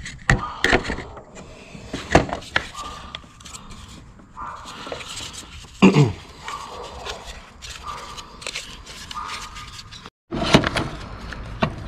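Handling noise from a vehicle engine computer (PCM) being fitted into its mounting bracket by hand: scattered clicks, knocks and scrapes of the module and bracket, with one louder knock about six seconds in.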